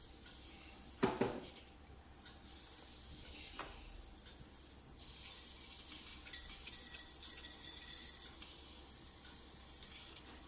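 A sharp metal knock about a second in, then, from about six seconds, a quick patter of small ticks as mustard seeds are tipped into a stainless steel kadai of oil. A faint steady hiss runs underneath.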